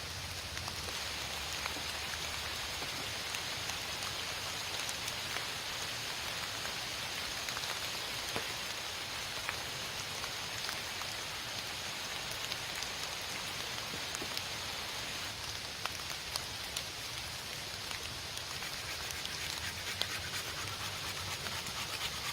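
Steady rain falling, a constant hiss sprinkled with many small, sharp drop hits.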